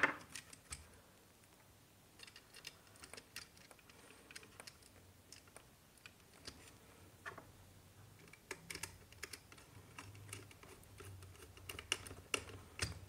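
Faint, irregular small clicks and taps of a wire and a screwdriver being handled against a plastic modular switch board, as a wire end is pushed into a terminal and its screw is tightened.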